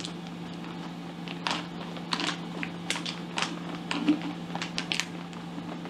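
Plastic bag of tile grout powder crinkling in small irregular clicks as the powder is shaken out of it into a bucket, over a steady low hum.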